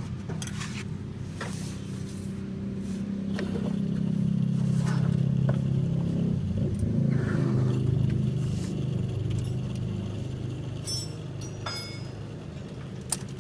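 Peugeot 406 engine running with the air conditioning on, the level swelling for a few seconds in the middle, with scattered light clicks and knocks. It is the noise of an AC compressor whose clutch bearing is worn.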